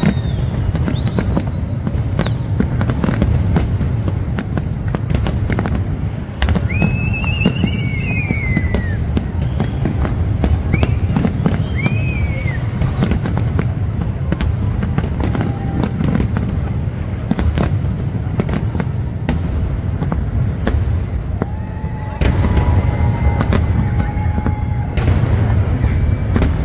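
Large fireworks display: a continuous deep rumble of booms with many sharp bangs and crackles, and now and then a high wavering tone. It gets louder near the end.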